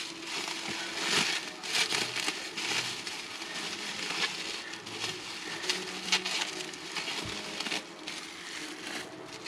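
Bubble wrap crinkling and crackling in irregular bursts as it is handled and unwrapped from small miniature parts.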